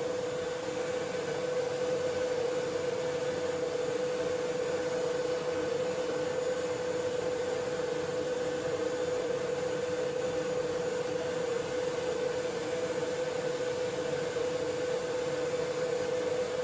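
An electric shop motor running steadily, with a constant hum over an even hiss.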